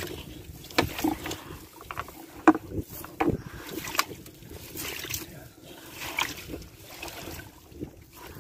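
Irregular knocks and clatter aboard a small fibreglass fishing boat, loudest about two and a half and three seconds in, over a steady low hum.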